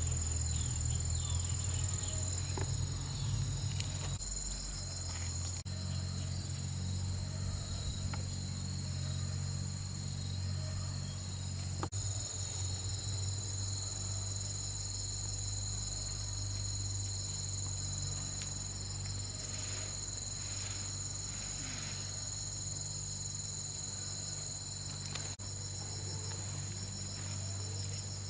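Outdoor insect chorus: a steady, high-pitched trilling made of several tones held together, with a low steady hum underneath.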